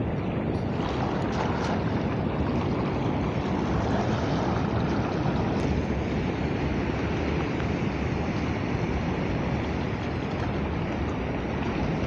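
Steady wind rumbling on the microphone over water sloshing as people wade through shallow sea.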